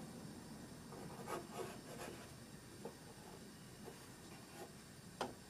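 Pencil sketching on paper, faint: a run of short scratchy strokes, then a few lighter ticks, and one sharper tick near the end.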